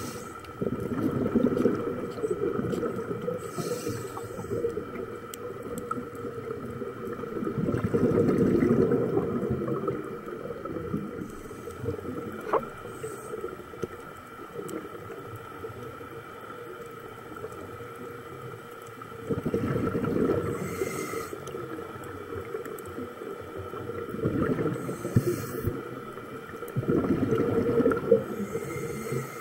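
Scuba diver's regulator breathing underwater: about five bursts of exhaled bubbles gurgle past the camera, a few seconds apart. A steady faint high hum runs underneath.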